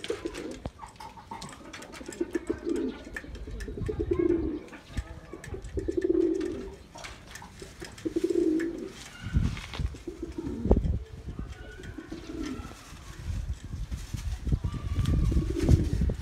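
Domestic pigeons cooing: a series of low coos, one every two seconds or so. Low rumbles on the microphone come in about nine seconds in and again near the end.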